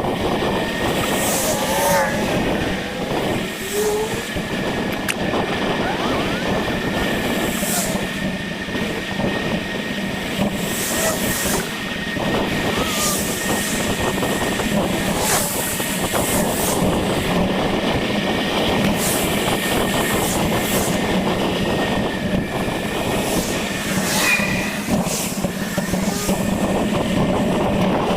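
Steady rolling noise of a bicycle ride: tyres on pavement and air rushing past, with a faint steady whine and occasional sharp clicks and rattles.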